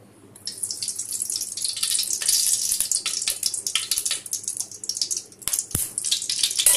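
Mustard seeds crackling and popping in hot oil in a kadai, with the oil sizzling: the seeds spluttering well during tempering.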